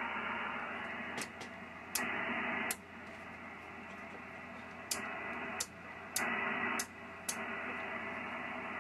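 Receiver static and band noise from a Yaesu FT-2000 on the 10-meter band, stepping louder and quieter as the Ameritron RCS-8V remote antenna switch is clicked through its positions: each antenna brings in a different noise level, and the grounded position goes quieter. Sharp clicks mark each change, about nine in all.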